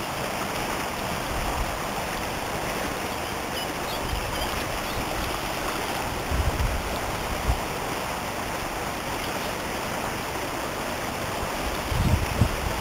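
Shallow river water rushing steadily over a stony riffle, with a few brief low rumbles near the middle and again near the end.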